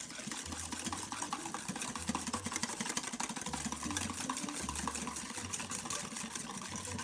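Wire balloon whisk beating egg yolks and sugar in a bowl: a fast, steady clatter of the wires against the bowl.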